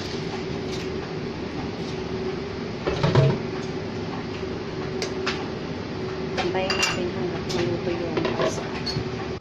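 A utensil clinking and scraping against a metal pan of spaghetti in hot water as it is stirred, with a bump about three seconds in and a run of clicks in the second half, over a steady hum.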